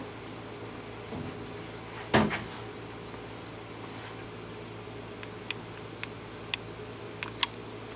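A hand-held steel pouring crucible being set down with one loud clank about two seconds in, just after a pour of molten aluminium into a sand mold. Steady insect chirping and a low hum run underneath, with a few faint sharp ticks in the second half.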